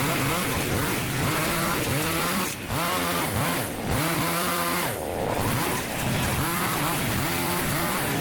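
Small petrol engine of a garden power tool, revving up and down again and again as it cuts, with short drops in speed between.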